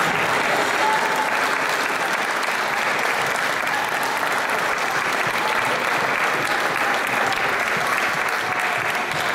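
Audience clapping steadily: sustained applause from a crowd of spectators.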